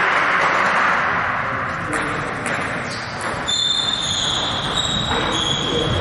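Table tennis hall ambience between rallies: a steady hall hiss with a few scattered ball clicks, and from about halfway a high squealing tone that shifts in pitch a few times.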